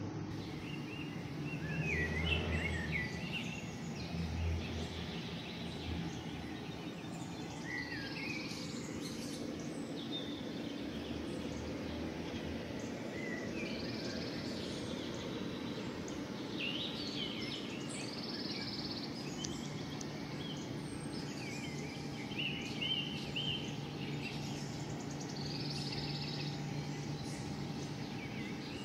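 Birds chirping on and off over a steady low outdoor background hum, with a couple of low bumps near the start.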